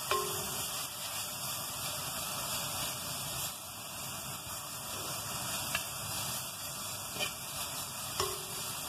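Balloon vine leaves sautéing in a little oil in a clay pot: a steady sizzle, with a few light clicks, and a short squeak just after the start and again near the end.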